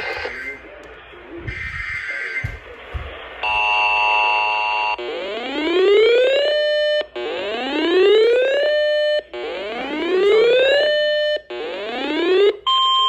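Electronic weather-alert alarm: a steady beep tone lasting about a second and a half, then four rising whoop sweeps in a row, each climbing in pitch for about a second and a half, holding briefly and cutting off.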